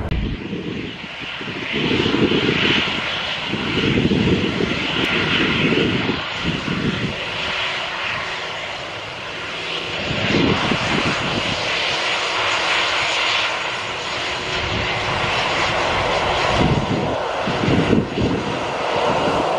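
Jet airliner engines running, a steady rushing whine: first a departing airliner climbing away, then a Citilink Airbus A320 on the runway. Irregular gusts of wind buffet the microphone, strongest in the first few seconds and again near the end.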